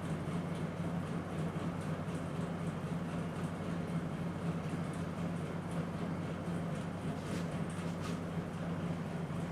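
Steady low hum with faint, irregular scratchy rustles over it: a barber's hands massaging a scalp and rubbing the hair.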